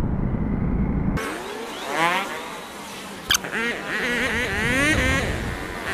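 Motorcycle traffic heard from a moving motorcycle: a muffled low engine-and-wind rumble that changes abruptly about a second in, then motorcycle engines revving, rising and falling in pitch, with a single sharp click midway.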